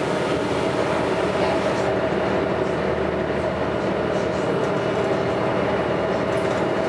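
Diesel engine of a Scania L113CRL single-deck bus, an 11-litre straight-six, running steadily under way: an even, continuous drone with a held hum in it.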